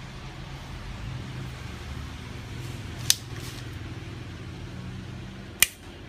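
Victorinox Rangerwood 55 pocket knife tools (its scissors and corkscrew) being folded shut, making two sharp metal clicks about two and a half seconds apart, the second louder. A steady low hum lies underneath.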